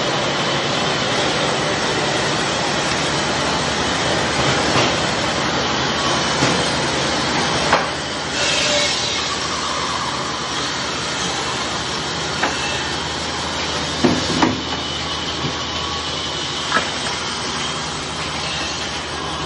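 Woodworking saws running steadily, among them a vertical band saw cutting lumber, with a few sharp knocks of wood.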